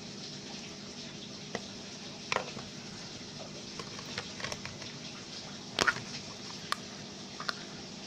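Steady tropical rain falling, with about half a dozen sharp taps scattered through it, the loudest about six seconds in.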